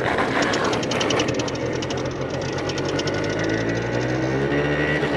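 Small moped engine running at idle, a steady rapid pulsing hum.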